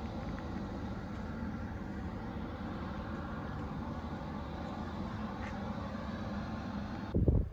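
A steady low mechanical hum and rumble with a few faint clicks. About seven seconds in it gives way abruptly to gusts of wind buffeting the microphone.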